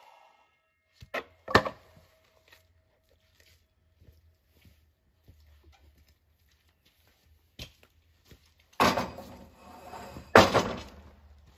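A miter saw's blade spinning down after a cut, then two sharp knocks as the cut board is handled. About nine seconds in, and again at ten and a half, the board scrapes and thuds against wood as it is shoved up onto the overhead deck framing.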